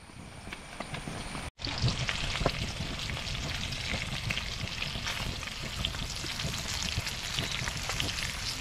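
Snakehead fish pieces frying in coconut oil in a pan: a steady sizzle with many small crackles. The sound drops out briefly about one and a half seconds in, then comes back louder.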